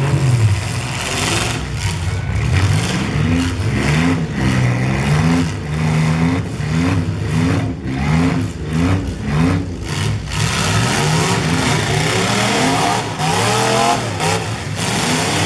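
Full-size demolition derby cars' engines revving up and down over and over, mixed with repeated bangs of the cars smashing into each other.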